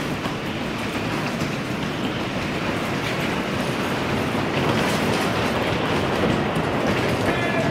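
Cars of a Whip amusement ride rolling on their wheels around the wooden platform, a steady rumble that grows a little louder about halfway through.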